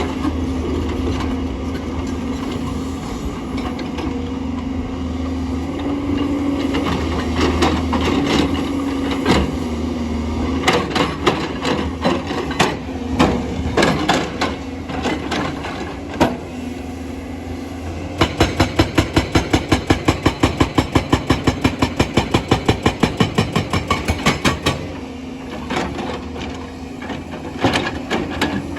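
JCB excavator's diesel engine running, with scattered knocks and cracks of stone. About eighteen seconds in comes a rapid, even hammering, about six blows a second, lasting some six seconds, then more irregular knocks.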